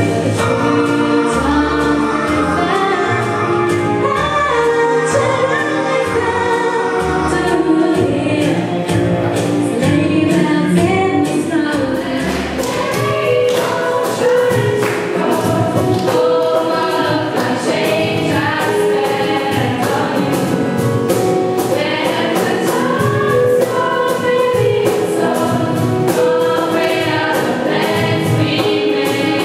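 Live singing with a small band: a group of voices sings together over acoustic guitar, keyboard and cajón, and a steady beat comes in about twelve seconds in.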